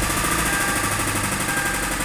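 Car V-engine running with a fast, even mechanical rattle, the kind of noise the mechanic puts down to a likely mechanical problem inside the engine such as the timing chain or cam phaser.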